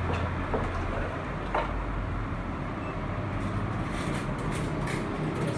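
Steady background noise of passing street traffic, with a few light clicks.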